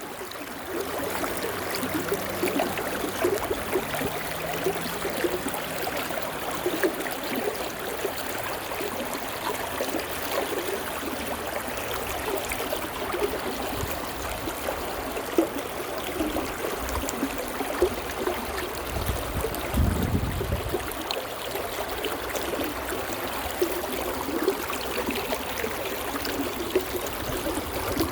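Stream water flowing and babbling over stones, a steady fine splashing and gurgling. A brief low rumble comes about two-thirds of the way through.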